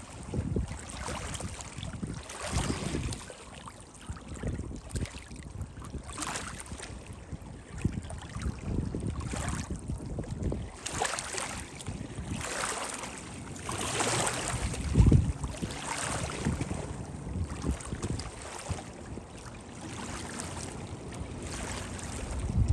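Wind buffeting the microphone in uneven gusts over choppy open water, with small waves lapping and splashing. There is no steady engine note.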